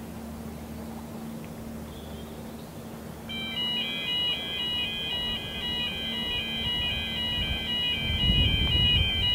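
An electronic warning alarm starts about three seconds in and sounds steadily, two high tones alternating in a regular pattern, typical of a level-crossing warning. A low rumble builds under it near the end.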